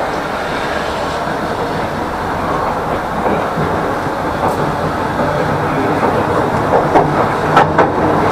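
Tram running along the track, a steady rumble that grows slowly louder, with a few sharp clacks of the wheels over the rails near the end.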